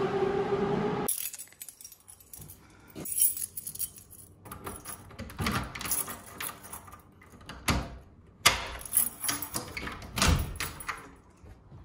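Keys on a ring jangling and clicking as a key is worked in a door's knob lock, a run of rattles and sharp clicks with the sharpest about two-thirds of the way through. At the start, a metro train's rising motor whine runs on for about a second and cuts off.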